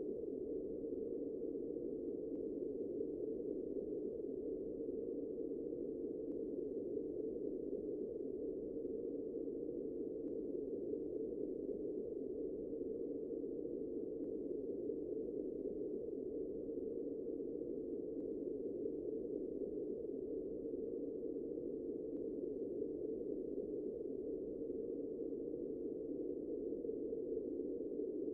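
A steady, unchanging low drone with no rhythm, breaks or changes in pitch.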